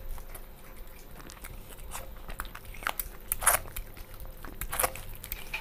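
People eating chicken curry and rice by hand: chewing and crunching, with a scatter of short sharp clicks, the loudest about three and a half seconds in.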